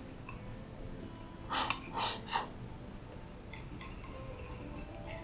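Chopsticks clinking and scraping against a ceramic rice bowl as food is shovelled from it: a quick cluster of three or four clatters about a second and a half in, then a few lighter taps near the end.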